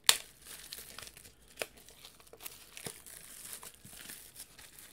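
Clear plastic shrink wrap crinkling and tearing as it is pulled off a pack of comics by hand. A sharp snap right at the start is the loudest sound, with a few smaller crackles after it.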